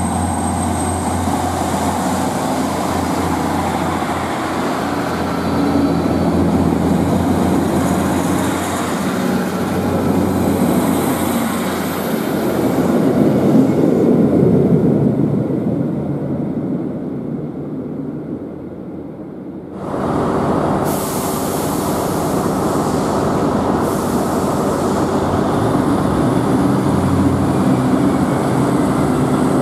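ScotRail Class 153 diesel multiple unit pulling out and running away along the track, its engine and wheels swelling as it goes past and then fading. About twenty seconds in the sound cuts sharply to another diesel multiple unit, a Class 170, moving off under a station's train shed.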